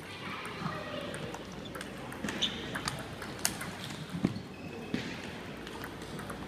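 Table tennis balls clicking sharply and irregularly off paddles and tables, several rallies going at once, over a low murmur of voices.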